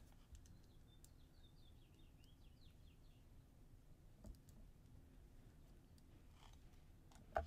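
Near silence with a few faint, sharp clicks of jewelry pliers on wire and glass beads as a wire loop is formed; the loudest click comes near the end.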